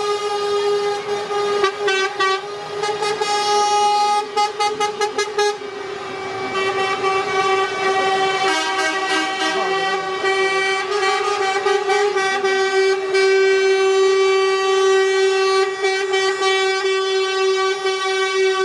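Truck horns sounding in a convoy: one long, steady horn note held throughout, with a quick run of about six short toots around four to five seconds in.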